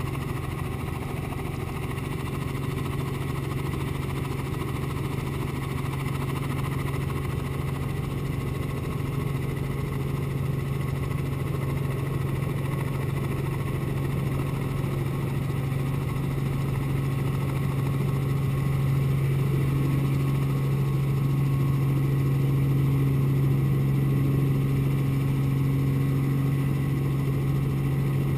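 Robinson R44 helicopter running, heard from inside the cabin: a steady hum of the Lycoming six-cylinder piston engine and rotors. It grows gradually louder over the second half, with an added higher tone from about two-thirds of the way in, as power comes up for the hover.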